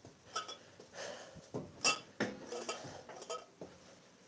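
Glass alcohol bottles clanking against each other several times, with short ringing clinks, the loudest about two seconds in.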